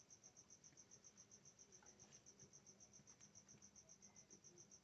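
Near silence with a faint cricket chirping steadily in a fast, even pulse, about nine chirps a second. A few faint ticks from wire ends being twisted together by hand.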